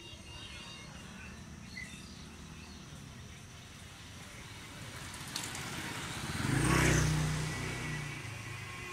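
Outdoor street noise with a motor vehicle passing close by: a low engine rumble that swells to its loudest about seven seconds in and then fades.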